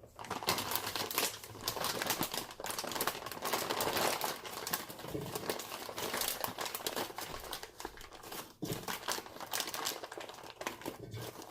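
Plastic bag of frozen waffle fries crinkling and rustling continuously as it is opened and handled to take out a serving.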